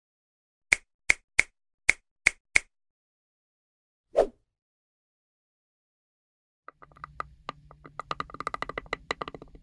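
Finger snapping, six crisp snaps in two quick sets of three. A short whoosh falling in pitch about four seconds in. From about seven seconds, teeth grinding: a fast grating rattle of many fine clicks that grows louder toward the end.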